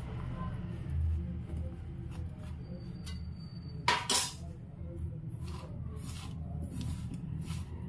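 Hand mixing shredded cabbage with flour in a stainless steel bowl: soft rustling and scraping with scattered clicks of fingers against the steel, and one loud clink of the bowl about four seconds in. A low hum runs underneath.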